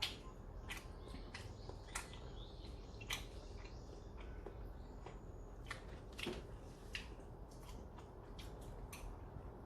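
People chewing food, with scattered sharp clicks about once a second, typical of chopsticks and utensils tapping dishes and mouth sounds while eating.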